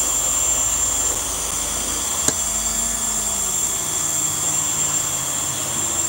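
Hoover Air Steerable upright vacuum cleaner running with a steady high-pitched whine while its airflow is still blocked by a clog, giving little suction. A single sharp click about two seconds in.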